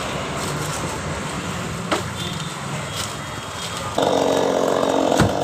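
Chainsaw engine running at low speed, then opened up to a louder, higher-pitched run about four seconds in, with a few sharp clicks along the way.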